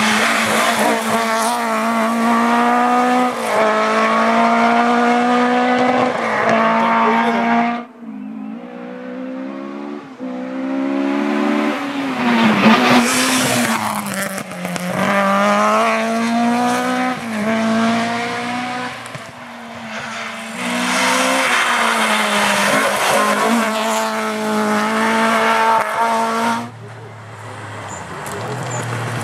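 Ford Escort Mk1 historic rally car at full throttle, its engine revving up through the gears, pitch climbing and then dropping at each shift. The sound breaks off abruptly twice; near the end a Porsche 911 rally car's engine takes over.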